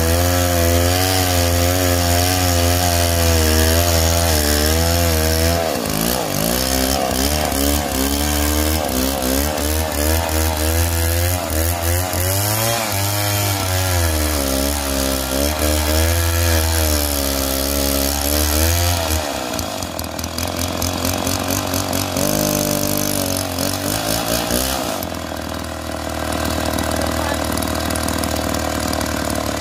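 Petrol two-stroke chainsaw ripping lengthwise along a log, running at high revs with its pitch wavering up and down as the chain bites and frees under load. About two-thirds through it eases off to a lower, quieter note for a few seconds, then picks up again.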